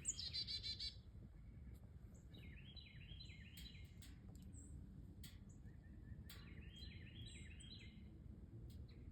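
Wild songbirds calling, faint. A quick run of high notes comes in the first second, then two series of rapid, repeated down-slurred notes, with scattered short chips between.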